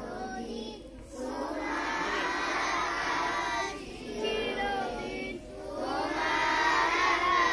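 A large group of schoolchildren singing together in unison. Their phrases are broken by two short breathing pauses.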